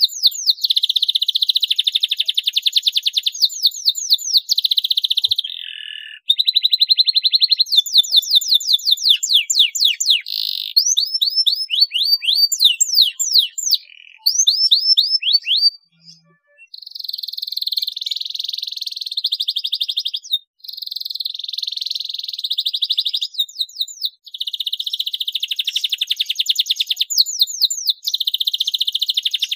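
Domestic canary singing a long song: fast buzzing trills and rolls alternate with runs of quick, sharply falling whistled notes, broken by brief pauses about 6, 16, 20 and 24 seconds in.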